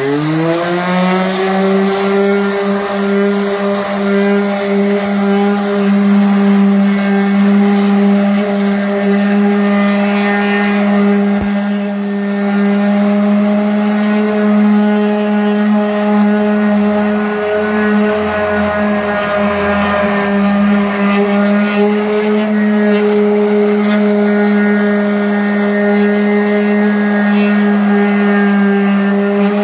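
Random orbital sander spinning up with a quick rising whine, then running at a steady pitch. It is sanding raised aluminum Airstream emblem letters with 320-grit paper to take down their mill finish.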